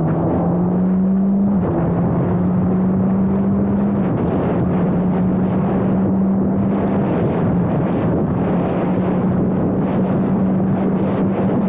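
Formula Abarth single-seater's turbocharged 1.4-litre four-cylinder engine running hard under load. Its pitch climbs and drops sharply at upshifts about two seconds in and again about four seconds in, then holds fairly steady.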